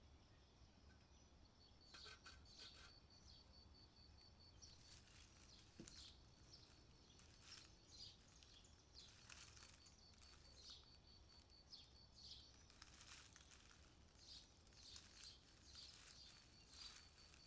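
Near silence, broken by faint, irregular, short scuffing sounds, roughly one or two a second, over a faint high rapid ticking.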